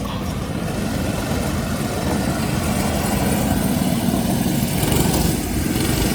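Go-kart engines running, a steady low drone that grows slightly louder as the karts pick up speed.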